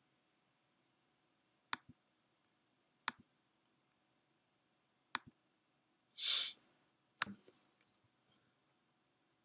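Four sharp computer clicks, spaced a second or two apart, each a quick press followed by a fainter release tick, with a short hiss between the third and fourth.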